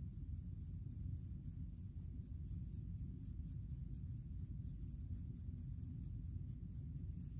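A black fine-tooth comb scratching in quick, short, repeated strokes through short wavy hair and across a dry, flaking scalp, lifting dandruff, a few strokes a second. A low steady rumble runs underneath.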